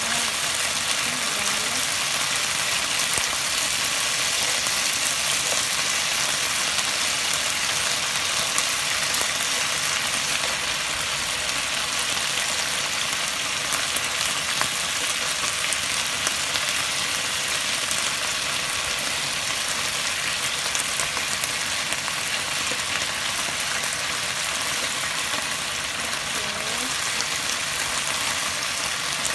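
Thin slices of marinated beef sizzling in hot oil in a nonstick pan: a steady frying hiss with small crackles. Tongs turn the meat around the middle, adding a few clicks.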